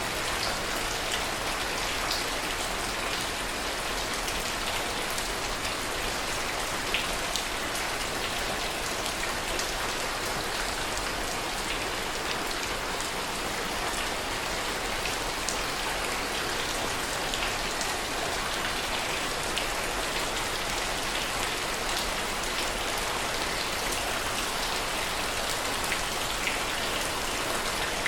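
Steady rain falling, with scattered individual drops tapping close by.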